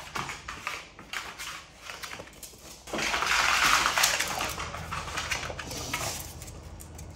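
Stiff-soled cycling shoes clicking and scuffing on a tiled floor. About three seconds in, a louder rustling rush lasts a couple of seconds, then dies away.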